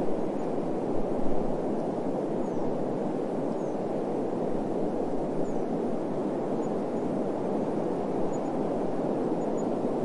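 Steady, low rushing wind with no gusts or breaks, with a few very faint high chirps now and then.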